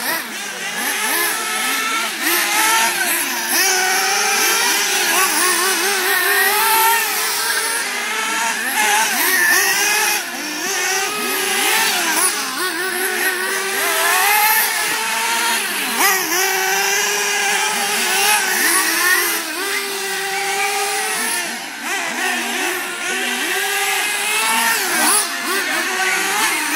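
Several nitro-powered 1/8-scale Losi late model RC cars lapping the track, their small glow-fuel engines whining and revving up and down over and over as they brake into and power out of the turns.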